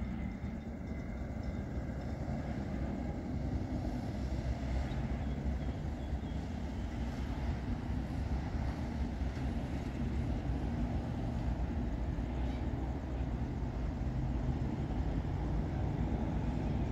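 Steady low rumble of road vehicles crossing the line as a grain train's wagons roll away.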